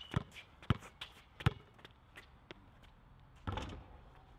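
A basketball being dribbled on an outdoor concrete court, a few sharp bounces about half a second apart, with a short scuff about three and a half seconds in.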